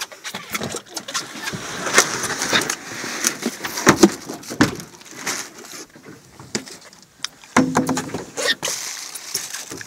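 Handling noise on a fibreglass boat: irregular knocks, bumps and rustling, the sharpest knocks about 2 and 4 seconds in, as a cooler full of fish is opened.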